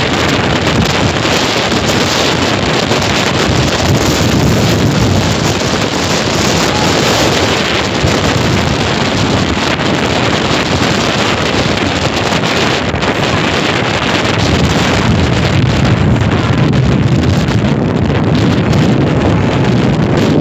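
Strong sea wind buffeting the microphone: a loud, steady rush of noise that barely lets up.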